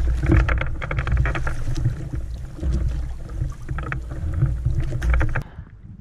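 Oars dipping and pulling on a rowed fishing raft, with water splashing and rushing around the oar blades and hull over a heavy low rumble. It drops off sharply about five and a half seconds in, leaving quieter lapping water.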